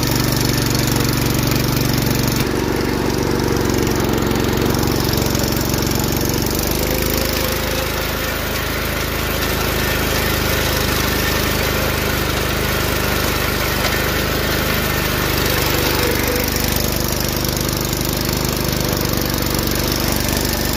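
John Deere lawn tractor's engine running as the tractor drives, its pitch shifting twice in the first several seconds as the engine speed changes.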